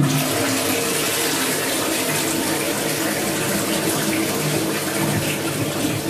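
Toilet flushing from a Dudley Vantage concealed cistern: a steady rush of water swirling into the bowl and down the drain. The repaired push-button flush is working again.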